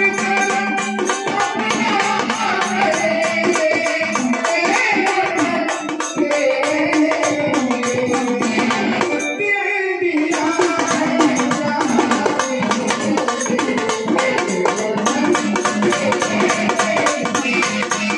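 Marathi folk music with fast, steady beats on a small hand-held frame drum (dimdi) under a sustained melody. The music briefly drops out about nine seconds in, then resumes.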